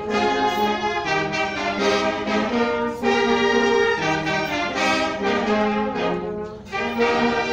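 Kimbanguist fanfare brass band playing a slow classical-style instrumental, the brass holding chords in several parts and moving from one chord to the next about once a second. The playing drops away briefly a little before the end and comes back in.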